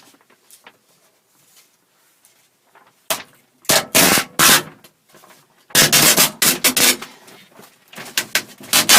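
Three loud clusters of clattering and rustling from hands working on the parts inside a van's sliding door, with quiet gaps between them.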